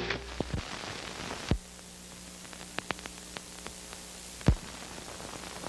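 Background noise of an old film soundtrack: a steady hiss and low hum with scattered crackles and clicks, and two louder pops, about a second and a half in and about four and a half seconds in.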